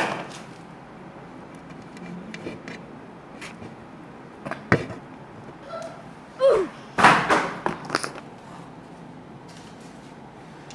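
Cardboard pizza boxes being opened and handled, with a sharp knock about halfway through and a cluster of scraping, rustling sounds a little later.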